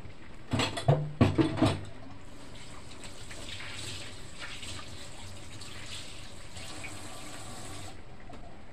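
Vegetable stew simmering in a pan, a steady soft bubbling hiss. About half a second in comes a short cluster of louder knocks lasting just over a second. Then a brighter, higher hiss runs for several seconds and stops abruptly near the end.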